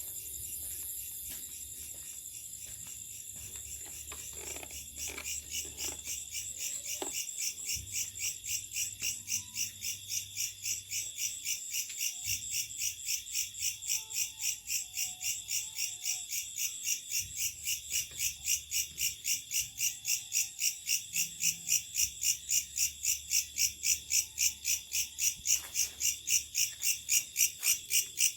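A night-calling insect, called a locust, singing a high-pitched, rhythmic pulsing call of about three pulses a second that grows steadily louder towards the end.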